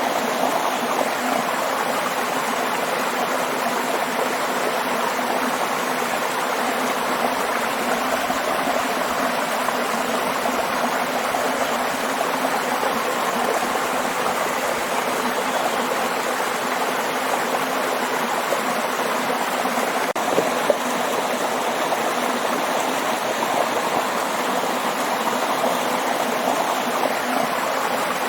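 Waterfall: a steady, unbroken rush of water, with one short tick about twenty seconds in.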